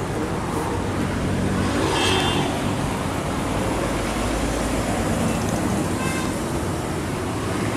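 Steady road traffic noise from passing vehicles, with one vehicle going by louder about two seconds in.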